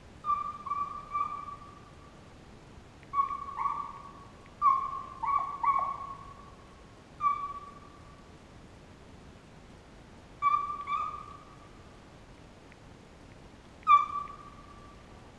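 Hunting hounds baying on a deer drive: short, steady-pitched bawls, some in quick runs of two or three, a few trailing down in pitch at the end.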